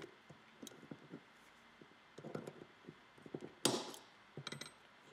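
Heavy sprue cutters snapping through a thick cast-metal sprue, a single sharp click about three and a half seconds in, amid faint ticks and taps of the metal casting being handled.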